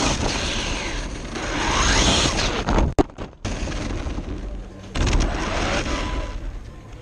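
Onboard sound of a Traxxas 1/16 Mini E-Revo electric RC truck driving on asphalt. Its motor whine rises and falls as it speeds up and slows, over rough tyre and chassis noise and jolts. The sound cuts out briefly about three seconds in and gets rougher and louder about five seconds in.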